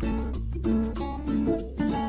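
Background music led by a plucked string instrument, guitar-like, playing a rhythmic run of short notes.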